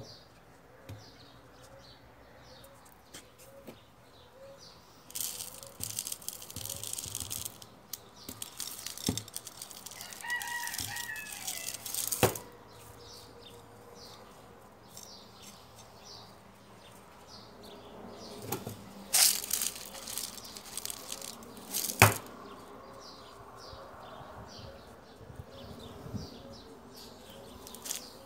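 Rustling from handling, in short bursts, with two sharp knocks about twelve and twenty-two seconds in. Small birds chirp over and over in the background, and a rooster crows once, faintly, near the middle.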